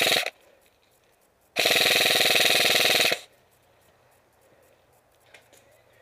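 Airsoft rifle firing on full auto: a short burst cut off just after the start, then a longer burst of about a second and a half of rapid, even shots.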